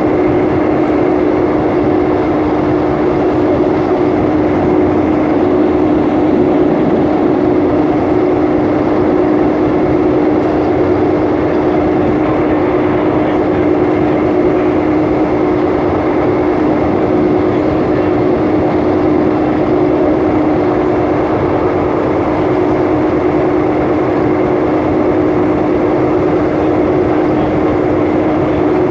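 Steady running noise of a moving passenger train heard from on board, with an even rumble and a constant hum that holds one pitch.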